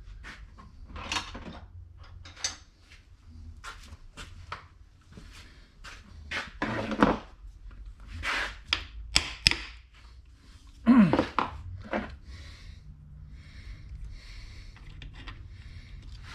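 Irregular knocks, taps and clunks of parts and tools being handled during assembly of a Muncie four-speed transmission, with the loudest thunks in the middle stretch and quieter rustling near the end.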